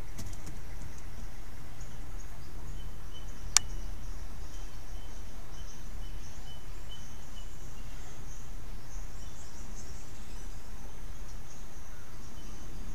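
Outdoor bush ambience: a steady low hum and hiss with faint high insect chirring and a faint pulsing call from about three to seven seconds in. One sharp click stands out about three and a half seconds in.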